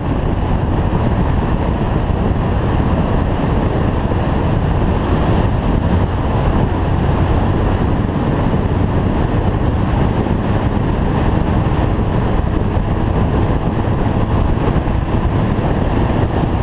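Steady wind rush buffeting the microphone of a motorcycle riding at highway speed, with the engine running evenly underneath.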